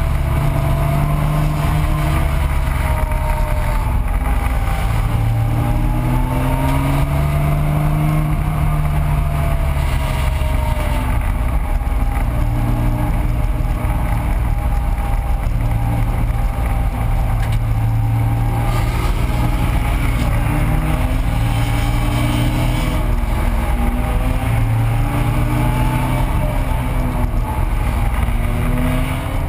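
1985 Porsche 911's air-cooled flat-six engine at racing speed, heard from inside the car, its pitch climbing and dropping several times as it works up through the revs and lifts for corners, over a steady rush of road and wind noise.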